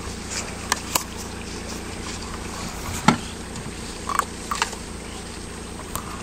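Chevrolet Niva's engine running steadily as a low hum, with scattered short clicks and knocks, the loudest about three seconds in.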